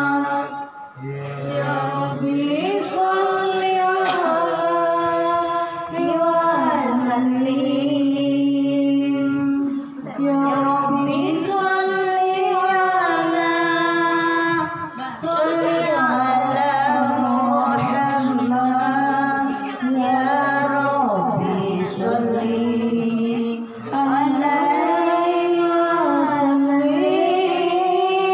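A woman singing Islamic devotional verses (sholawat) unaccompanied into a microphone. Long drawn-out, ornamented phrases, broken by short breaths every few seconds.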